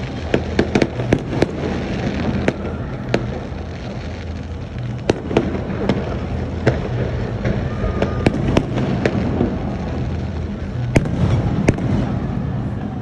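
Fireworks going off: many sharp bangs, crowded together in the first second or so and then scattered, over a steady rumble and crackle of further bursts.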